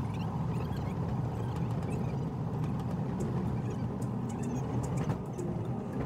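Steady low rumble of a car driving over a rough road, heard from inside the cabin, with faint short high chirps over it.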